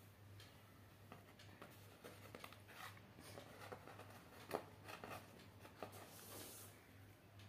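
Faint handling noises: scattered small clicks and rustles as a hot glue gun and craft materials are moved on a cloth-covered surface, with one sharper click about halfway through. A steady low hum runs underneath.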